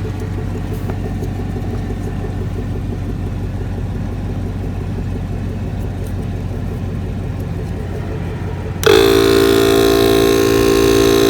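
A vehicle engine running steadily with a low rumble and a regular pulse. About nine seconds in, a much louder steady tone with many overtones starts abruptly and holds.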